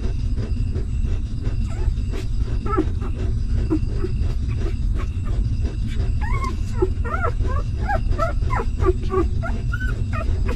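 Newborn puppies whimpering while they nurse: many short high squeaks, scattered at first and coming thick and fast in the second half, over a steady low rumble.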